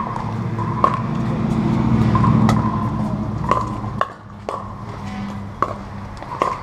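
Pickleball rally: paddles strike a hard plastic Dura 40 ball in sharp, ringing pops about once a second, about seven in all. Under the hits a low rumble swells and then drops away about four seconds in.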